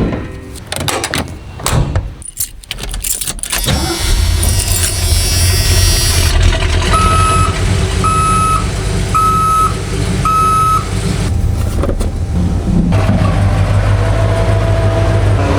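Ford dump truck engine cranking and catching about four seconds in, after a few clicks and knocks, then settling into a steady idle. Four short, evenly spaced electronic beeps from the cab's warning chime sound about a second apart shortly after the start.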